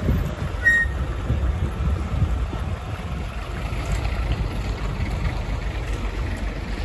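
Wind buffeting the microphone over the low rumble of a container truck's engine as it drives past close by.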